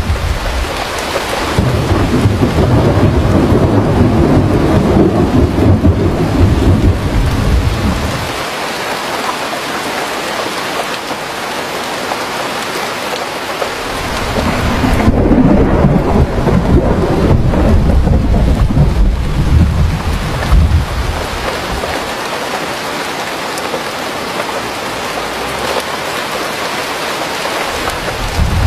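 Steady rain with rolling thunder: a constant hiss of falling rain, with two long low rumbles of thunder that swell and fade, one near the start and one about halfway through.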